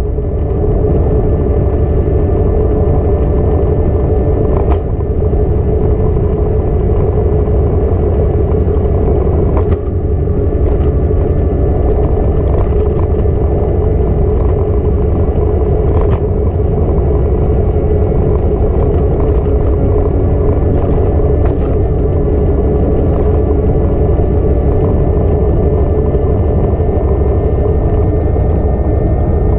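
Steady rolling and wind rumble of a ride along a paved bike path, with a few sharp clicks and rattles.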